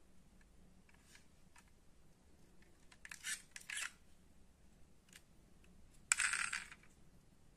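Small metallic clicks and rattles from a die-cast Ford Mustang GT model car being handled, its opening door moving on its hinge. A few light clicks come about three seconds in, and a louder short rattle about six seconds in.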